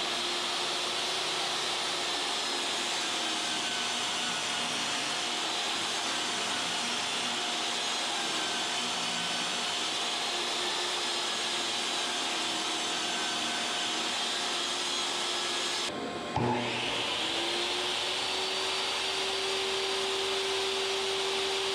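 DeWalt DWE7491 table saw motor running steadily with no cut, a hiss over a steady hum. About 16 seconds in it cuts out briefly, then spins back up with a rising whine that levels off.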